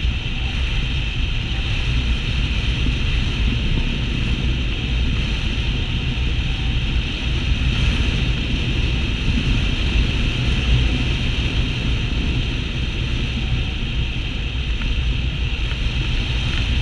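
Steady rush of airflow over the onboard camera of an FPV model airplane in flight, an even noisy rumble with no clear motor tone.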